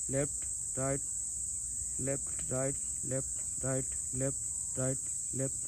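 Insects in the surrounding field making a steady, high-pitched drone throughout. Over it, a man's voice repeats short syllables about twice a second.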